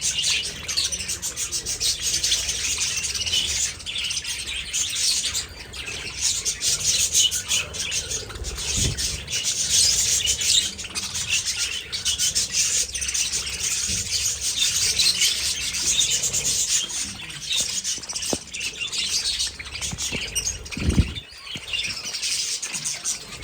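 A flock of budgerigars chattering and chirping continuously in an aviary, many birds at once. A low thump sounds near the end.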